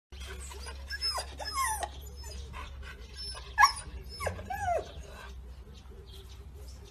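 Husky giving a run of short, high-pitched whines and yips between about one and five seconds in, the loudest near the middle.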